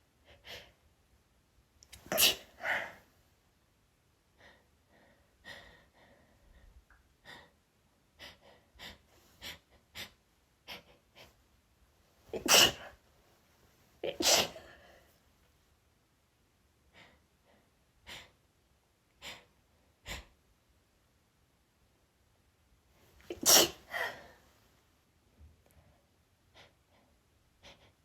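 A woman sneezing, loudest about two seconds in, twice around the middle, and near the end, with short sharp catches of breath between the sneezes.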